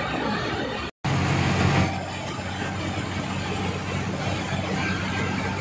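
Coach bus diesel engine running under way, heard from the driver's cab, a steady low engine note. The sound cuts out completely for a split second about a second in.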